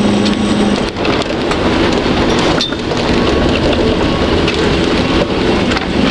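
A 4x4 driven through mud and wet, heard from inside the cab: a steady engine drone under a dense wash of splashing and road noise, with scattered knocks from the bodywork.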